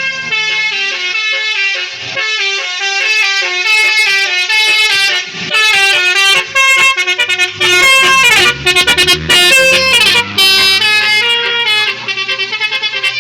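Basuri telolet horn, a multi-trumpet electric horn, playing a loud, fast tune of quickly changing notes. Around two-thirds of the way in and again near the end it breaks into rapid stuttering toots.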